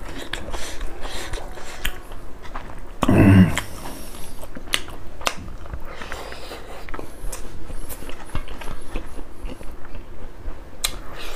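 Close-up mouth sounds of a man eating rice and pork by hand: wet chewing with many short lip smacks and clicks. A little over three seconds in comes a brief, louder, low vocal sound.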